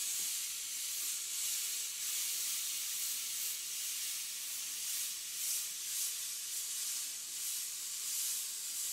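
Dual-action airbrush hissing steadily as it sprays paint, the air held on continuously, with slight swells in the hiss.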